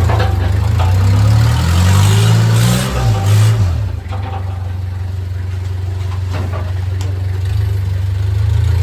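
A vehicle engine idling, revved up once about two seconds in and dropping back to a steady idle.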